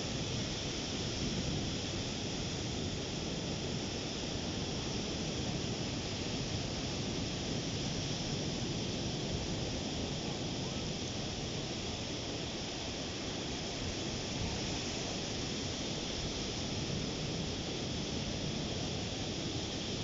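Ocean surf breaking and washing up a sandy beach: a steady, unbroken rush of waves.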